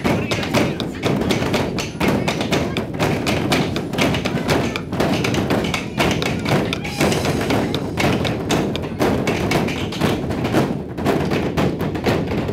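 A giant 14-foot drum being beaten by a group of players with sticks: a dense, continuous run of deep thuds and stick taps, with no pause.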